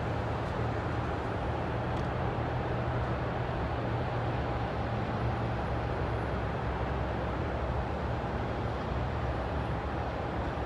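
Steady road-traffic and airport ground noise: a continuous low rumble with a faint steady whine over it.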